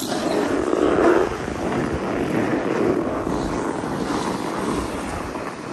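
Snowboard sliding and scraping over firm groomed snow, mixed with wind rushing over the microphone. It makes a steady, noisy rush that comes in suddenly at the start and is loudest about a second in.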